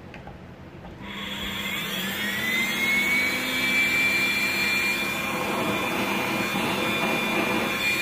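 Arçelik S6840 canister vacuum cleaner's motor, powered directly with its on/off switch bypassed, starting about a second in. Its whine rises in pitch over the next two seconds as it spins up, then it runs steadily.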